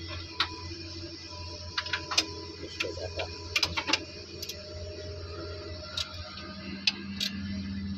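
Irregular metallic clicks and clinks of a steel wrench working an alternator mounting bolt, some single and some in quick clusters. A steady low hum runs underneath.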